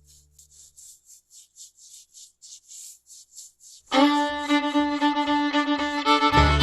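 Background music: soft ticking in an even rhythm of about four a second, then about four seconds in a bowed-string tune comes in loudly.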